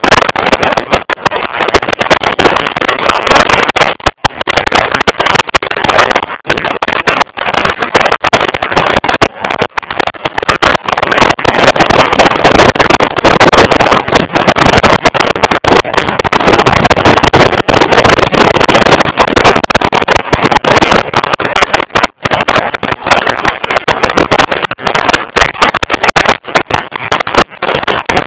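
Wind and road rush on a motorcycle-mounted camera's microphone while riding at speed, loud and steady, cutting out for an instant several times.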